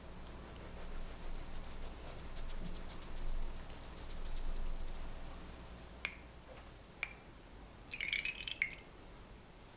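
A long knife saws through the edge of a baked sponge-cake sheet with a soft, rasping scrape. About six and seven seconds in come two light clinks of glass, then near the end a brief run of ringing drips and clinks as syrup is drizzled into a small glass cup.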